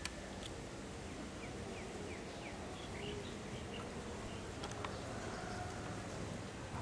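Open-air background noise with a run of short, high, quickly falling chirps in the first half, typical of small birds calling.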